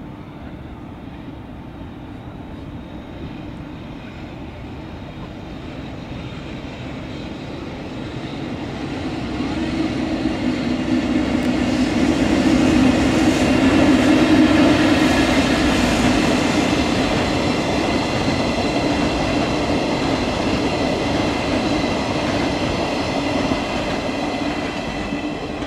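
JR EF65 electric locomotive approaching and passing while towing Toei Subway 12-600 series cars on a freight delivery move. The rumble builds and peaks as the locomotive goes by about halfway through, then the towed cars roll past with a steady rumble and high ringing tones, fading near the end.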